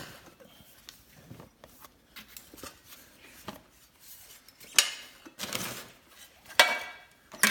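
Metal clinks and rattles of a sheet-metal exhaust heat shield being handled and fitted, quiet small clicks at first, then a few sharper clanks over the last three seconds.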